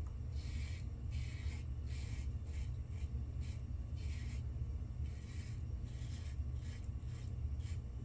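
Razor blade scraping through lathered stubble in short strokes, roughly two a second, during an across-the-grain shaving pass. A steady low hum runs underneath.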